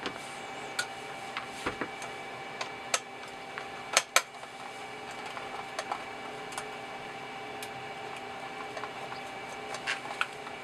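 Scattered light clicks and taps of the plastic speaker housing and its parts being handled while the front driver is taken out, with a louder pair of clicks about four seconds in. A steady faint hum lies underneath.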